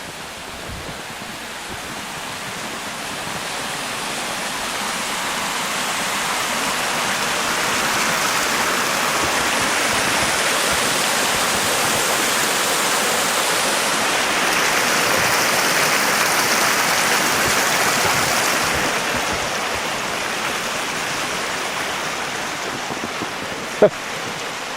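Rushing water of a small mountain waterfall, a steady hiss that swells gradually over the first several seconds, holds, then eases off. A single sharp click sounds near the end.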